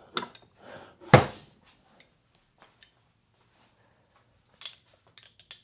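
Metal hand tools clinking and clanking as wrenches are tried for size on the master cylinder clamp bolt, with one loud clank about a second in and a cluster of light clinks near the end.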